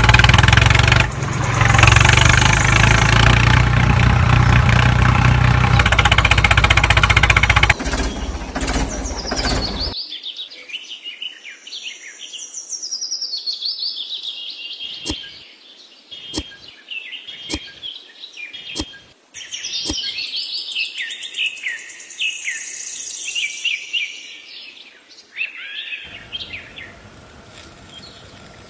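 Birds chirping and tweeting in varied calls, with five sharp clicks about a second apart partway through. Before that, for about the first eight seconds, there is a loud, dense sound over a steady low hum. Near the end it gives way to faster insect-like chirping.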